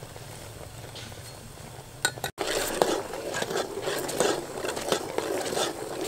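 Wooden spoon stirring liquid in an aluminium pot, with irregular scrapes and knocks against the pot. The stirring starts a couple of seconds in, after a quieter stretch.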